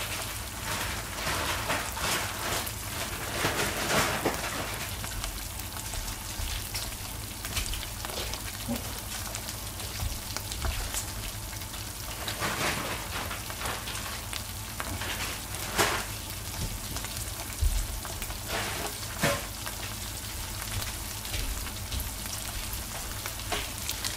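Slices of grilling cheese sizzling on a hot griddle: a steady hiss broken by scattered sharp pops and crackles.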